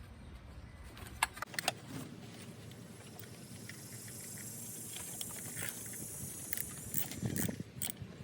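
Scattered sharp clicks and light metallic rattles from hands and tools working at the Vanos solenoids' connectors and bolts in a BMW engine bay, with a soft hiss in the middle.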